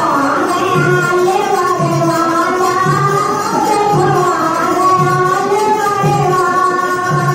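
Indian devotional song (bhajan): a voice sings a winding melody over a steady low drum beat that comes about once a second.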